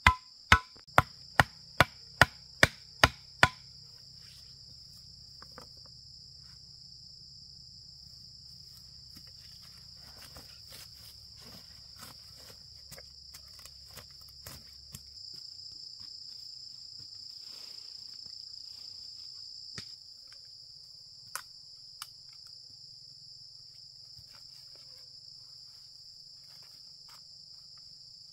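Rapid chopping strikes on wood, about eight blows at two to three a second, that stop a few seconds in; the strikes are the loudest sound. Insects buzz steadily throughout, with scattered faint clicks and snaps after the chopping stops.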